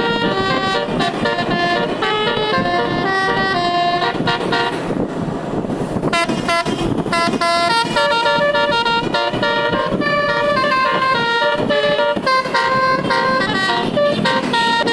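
Multi-tone Indonesian 'telolet' bus air horn playing a fast melody of short stepped notes, with a break of about a second around five seconds in.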